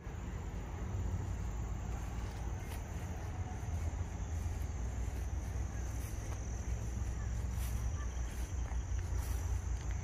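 Steady high-pitched trill of insects, crickets or cicadas, running without a break over a low steady rumble.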